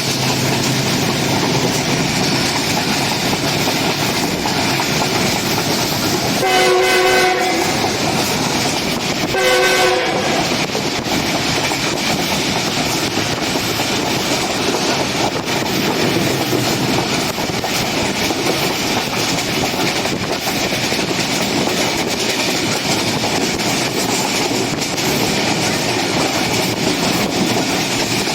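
Diesel-hauled passenger train running along the track, its wheels clattering over the rails. A locomotive horn sounds twice, about six and a half seconds in for about a second and again about three seconds later, more briefly.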